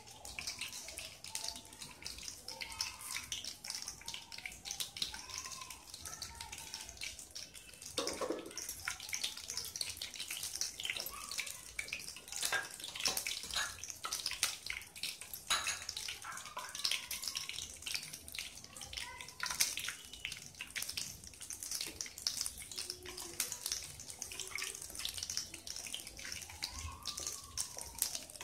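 Whole spices (bay leaves, dried red chillies and seeds) sizzling and crackling in hot oil in a kadai, stirred with a wooden spatula; the sizzle grows a little louder about eight seconds in.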